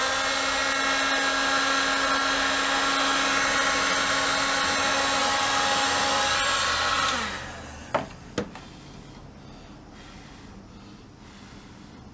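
Electric hot-air blower running, blowing hot air to soften a warped plastic radio dial glass. Its fan motor spins up, runs steadily for about seven seconds, and winds down after it is switched off. Two sharp clicks follow about a second later.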